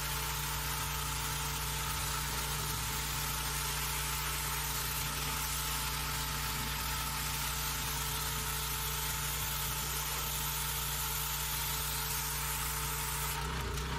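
Pressure washer running steadily, its motor humming under the continuous hiss of the water spray as a boat hull is sprayed down.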